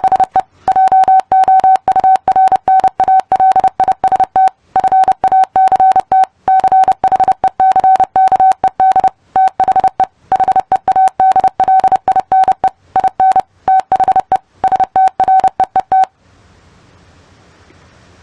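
Morse code played as a single steady-pitched beep by a Morse practice program, keyed on and off in quick dots and dashes, grouped into letters and words with short gaps; it stops near the end.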